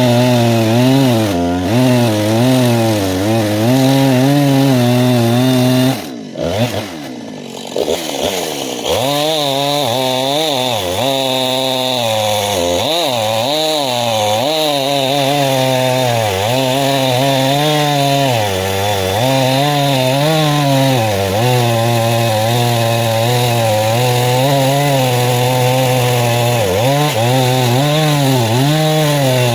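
Two-stroke chainsaw running at full throttle, its pitch wavering under load as it cuts into ash wood. About six seconds in it drops back briefly toward idle, then revs up again and keeps cutting.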